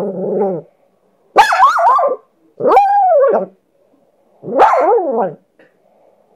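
A pet dog's drawn-out bark-howls: four separate calls of about a second each, the pitch sliding up and down within each, the first one lower than the rest. The dog is complaining vocally at being teased.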